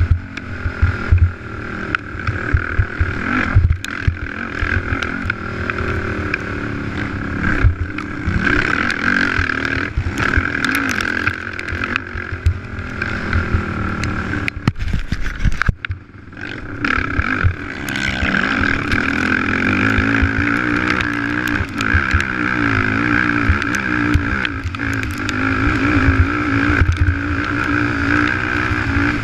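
Racing ATV engine running hard, heard from on board, revving up and down as the rider works the throttle, with knocks and rattles from the rough dirt track. About halfway through the engine briefly drops back, then climbs again.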